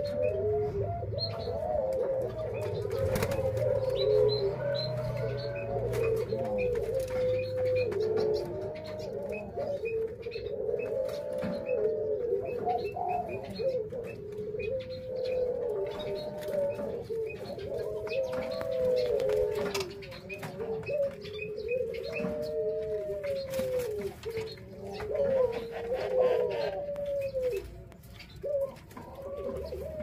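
Ringneck doves cooing without a break, one rise-and-fall coo after another with several birds overlapping, and faint high chirps running through it.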